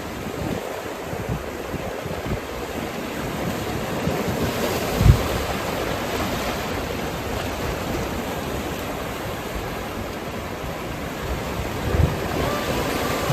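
Sea waves washing on the shore, a steady rush with a swell about four seconds in. Wind buffets the microphone, with low thumps about five seconds in and again near the end.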